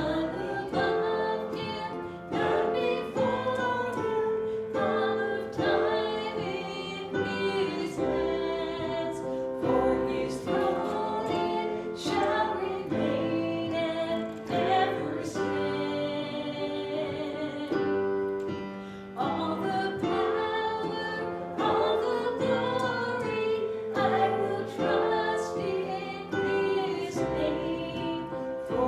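Worship song: voices singing with instrumental accompaniment.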